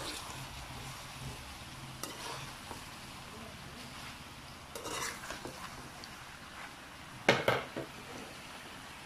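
Metal spatula stirring macaroni and chicken in a metal pan, scraping and clinking against the pan now and then, with the loudest scrapes a little after seven seconds in.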